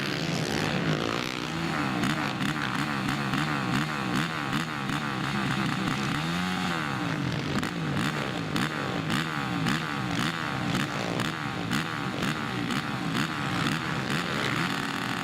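Several racing quad (ATV) engines revving up and down together, their pitches rising and falling and overlapping as they race.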